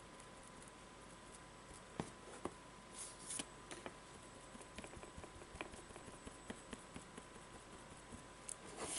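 Round sponge dauber tapping paint onto a canvas board: soft scattered taps and clicks begin about two seconds in, with a couple of brief scuffing rustles as the dauber and board move.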